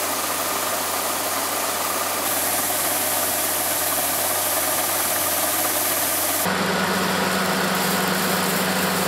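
Yanmar combine harvester's engine running steadily while its unloading auger pours threshed rice into a truck bed, with a hiss of falling grain. The sound changes abruptly about two-thirds of the way in to a steadier engine hum.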